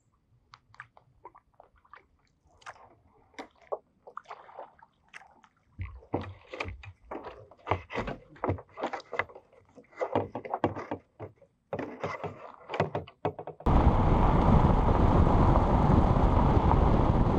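Kayak paddle dipping and splashing in still water with drips and small knocks, picking up into quick, irregular strokes and sloshing about six seconds in. Near the end it cuts suddenly to a steady, loud rush of wind and road noise on a camera mounted on the outside of a moving car.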